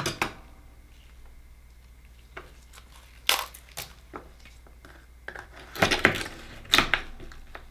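Knife scraping and clicking against an akoya oyster shell as it is pried open, the loudest cluster of clicks coming about six seconds in, with a few earlier sharp taps of shell and tools on a wooden cutting board.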